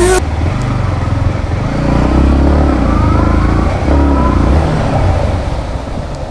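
Yamaha MT-15 V2's 155 cc single-cylinder engine running as the motorcycle rides off at low speed, its pitch rising and falling several times as the throttle opens and closes.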